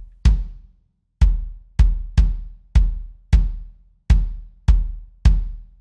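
Soloed kick drum playing a pattern of nine hits, each a sharp attack with a deep boom that dies away. It is a live-recorded kick enhanced with a triggered Addictive Trigger kick sample, its bottom end being boosted by EQ.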